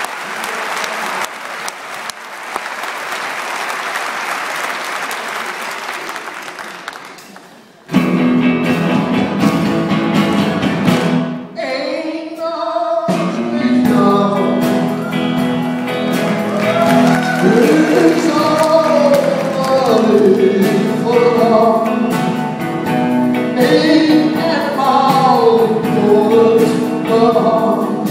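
Audience applauding, dying away after about seven seconds. Then a live band with double bass and guitar starts up, and from about thirteen seconds in a woman and a man sing a duet over it.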